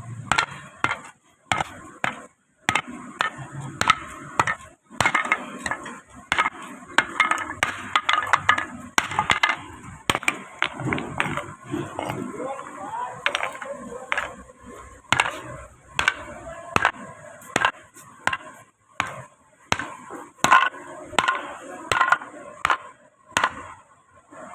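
Irregular run of sharp knocks and clinks, like metal being struck and worked with hand tools, several a second at times, over a faint steady high hiss.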